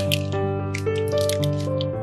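Background music: sustained synth-like notes and chords that change pitch about every half second.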